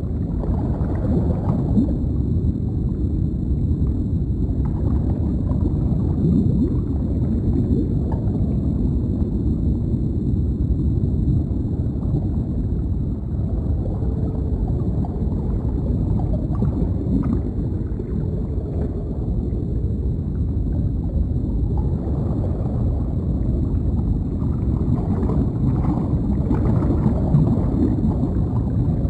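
Deep underwater ambience: a steady low rumble of water, with soft gurgling and bubbling swells that come and go.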